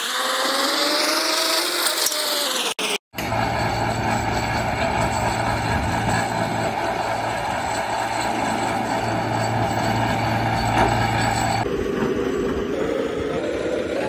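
Engine of the piling machinery running: its pitch rises and then falls over the first few seconds, then after a brief break it holds a steady drone, which changes near the end.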